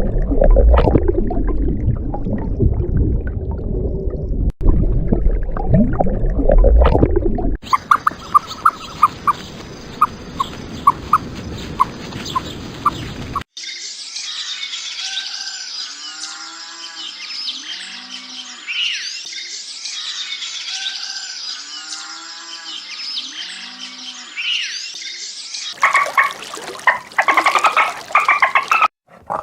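A string of different animal recordings spliced one after another. First comes a loud, low call lasting several seconds. Then rapid, even clicking calls, then repeated falling calls over a higher hiss, and a short noisy burst near the end.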